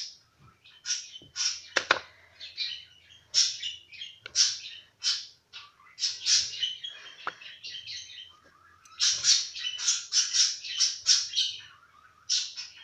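A small bird chirping and twittering in quick, irregular runs of short high calls, busiest near the end.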